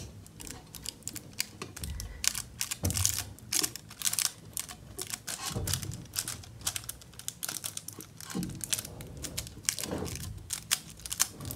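Sheet of metallic foil paper crinkling and crackling in the fingers as it is pressed and rubbed onto a glue-coated ceramic figure, a run of irregular crackles with a few soft low bumps.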